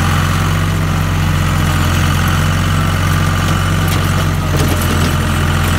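Case IH 395 tractor engine idling steadily, with heavy rain falling.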